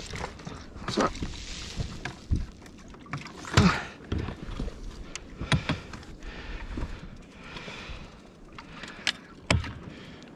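Irregular knocks and clatter of fishing gear being handled aboard an inflatable boat, over a steady background hiss.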